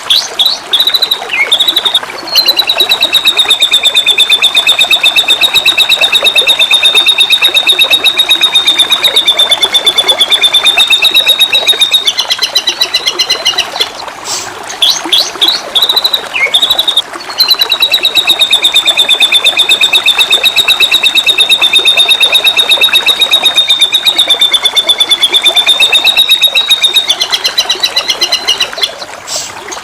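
White-rumped shama singing: short varied whistled phrases, then a long rapid high trill lasting about ten seconds, the same pattern coming twice. Under it runs a steady hiss of flowing water.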